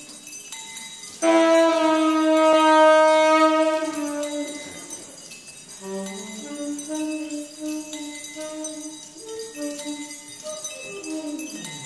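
Solo tenor saxophone playing slowly: a loud long held note starts about a second in, followed by quieter short notes and a downward sliding run near the end.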